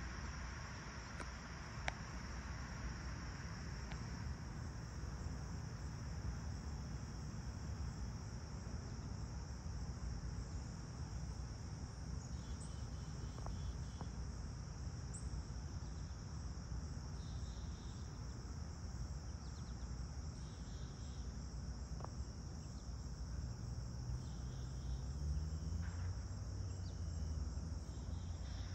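Steady chorus of crickets, a continuous high-pitched trill, over a low background rumble. Near the end a low drone rises in pitch and grows louder.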